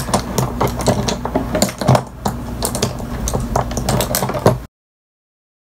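A fast, irregular run of small clicks and taps, like small hard items being handled close to the microphone, over a low steady hum. It cuts off suddenly to silence near the end.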